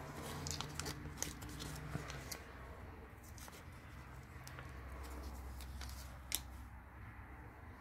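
Faint crinkling and rustling of a small paper packet of brake lubricant being handled, with scattered small clicks and one sharp click a little over six seconds in, over a low steady hum.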